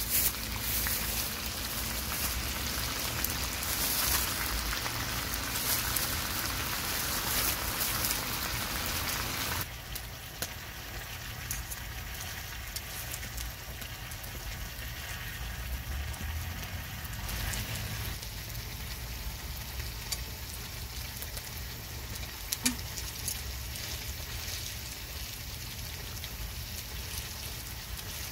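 Spicy marinated chicken and rice cakes (dakgalbi) sizzling on a cast-iron griddle over a gas burner, a steady frying hiss with scattered light clicks of metal tongs turning the food. The sizzle drops to a quieter level about ten seconds in.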